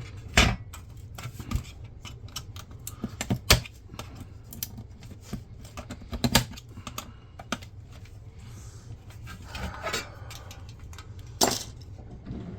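Irregular clicks, taps and light clatter of small metal and plastic parts and tools being handled while a flat-screen monitor is dismantled. The louder knocks come about half a second in, about three and a half seconds in, about six seconds in and near the end.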